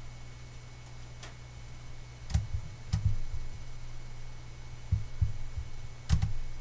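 Computer mouse clicking: a few short, sharp clicks, each with a low thud, including a quick double click near the end. A steady low hum runs underneath.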